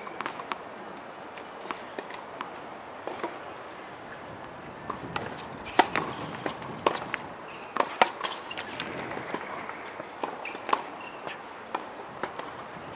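Tennis rally on an outdoor hard court: sharp, irregularly spaced pops of rackets striking the ball and the ball bouncing, busiest between about five and nine seconds in.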